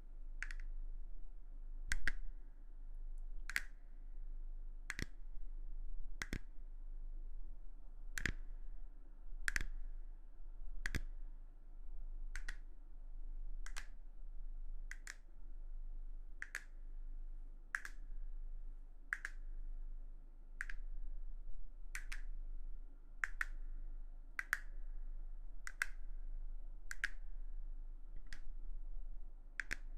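Crisp, short clicks repeated at an even pace, a little under one per second and a half, as an ASMR trigger sound.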